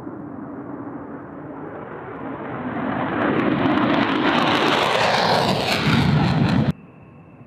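Fighter jet engine noise, a broad rushing sound that grows steadily louder over several seconds, then cuts off abruptly near the end, leaving a fainter steady hum with a thin high whine.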